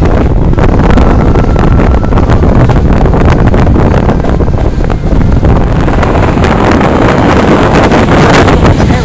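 Wind buffeting the microphone held out of a moving railway carriage's window, loud and steady, over the low rumble of the train running along the line.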